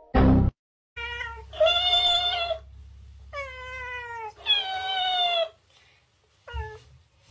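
A brief loud sound at the start, then a run of about five meows, some held steady and some falling in pitch, from a cat and a dancing cactus toy that plays back the sounds it hears.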